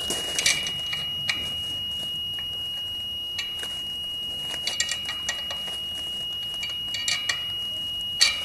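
Satellite finder meter whistling a steady, unbroken high tone that reports the signal while the dish bracket bolts are tightened. Over it, a spanner clicks and clinks on the metal bracket and bolts in irregular bursts, with the sharpest clink near the end.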